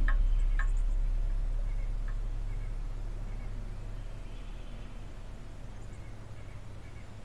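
A low, steady rumble, loud at the start and fading slowly, with a few faint, short bird chirps scattered through it.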